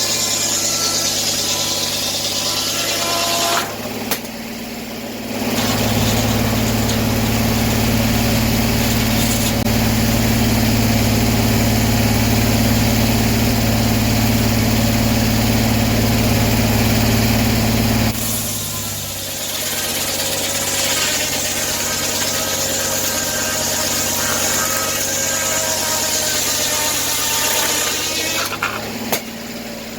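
A sawmill's engine running steadily. From about five seconds in to about eighteen seconds it grows louder and denser, as the saw works through an oak log under load, then it drops back to a lighter run.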